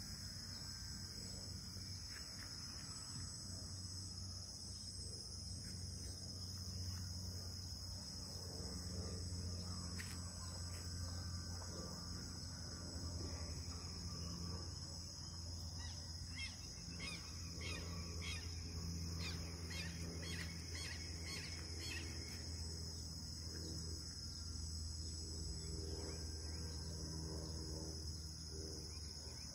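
Steady outdoor background noise: an even high drone over a low hum, with a few faint short chirps partway through.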